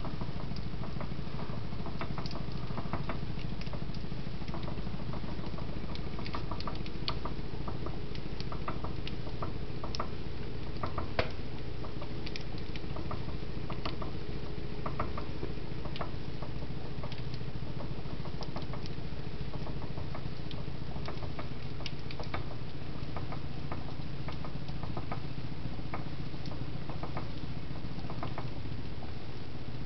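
Stainless steel two-handled pan of pastries frying in hot oil, jiggling on a glass-top electric stove: a run of irregular small clicks and ticks over a steady low hum, with the oil sizzling.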